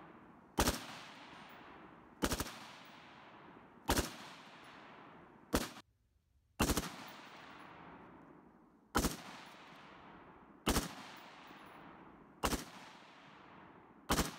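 Black Sword Rapier rifle fired from the prone position on a bipod: about nine slow, aimed single shots, roughly one every one and a half to two seconds, each trailing off in a long echo.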